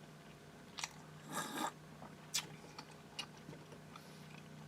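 Faint mouth sounds of a man eating and drinking: scattered wet clicks and smacks, with a short breathy rush of noise about a second and a half in, over a steady low hum.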